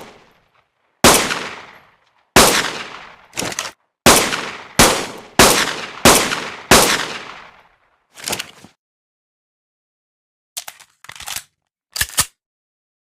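Fabricated pistol gunshot sound effect: a series of single shots, about eight loud ones in roughly six seconds, each with a fading echo tail. A weaker shot follows, then a few short sharp clicks near the end.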